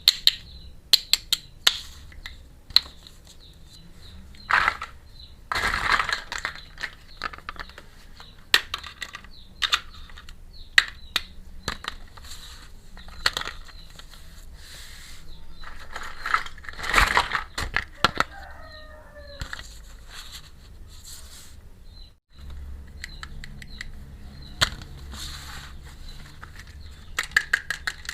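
Small plastic toy pieces of a miniature kitchen set clicking, tapping and rattling as they are handled and set down, with short bursts of packaging rustle between them. A brief wavering squeak sounds about two-thirds of the way through.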